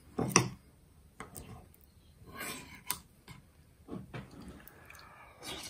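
Scattered soft eating sounds, someone taking soup and chewing, with a short louder sound right at the start.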